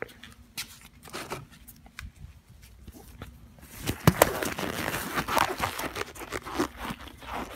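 Handheld handling noise: a few scattered clicks and knocks, then from about three and a half seconds in a denser rustling, scraping clatter as things are moved about.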